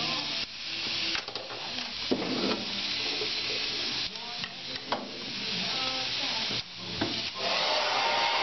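Steady rushing hiss with a few clicks and knocks. Near the end a handheld hair dryer comes on close by and runs steadily.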